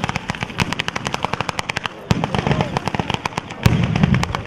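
Daytime sanseverese-style firework battery: a rapid, irregular rattle of firecracker bangs, many a second. Heavier booms come in about two seconds in and again near the end.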